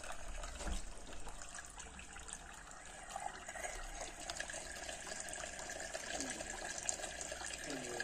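Faint splashing and trickling of water in a small homemade tabletop fountain: water spills from the top cup into the bowls below while more is poured from a plastic bottle into the lower bowl.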